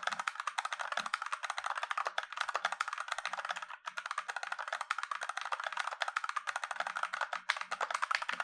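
Fast typing on a Fantech Maxfit 87 mechanical keyboard with linear red switches, double-shot ABS keycaps and floating keys on an aluminium plate: a rapid, steady clatter of keystrokes with a brief pause about four seconds in.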